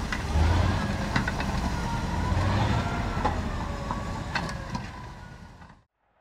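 Engine of a tracked all-terrain carrier running steadily as it drives through a shallow icy ford, with a few sharp clanks. The sound fades and cuts to silence near the end.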